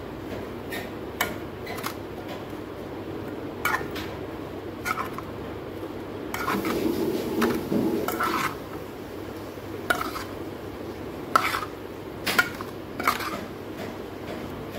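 Metal spoon stirring sliced potatoes, onions and spices in a metal mixing bowl: irregular sharp clinks of spoon on bowl, with a louder stretch of vegetables rustling and tossing about halfway through.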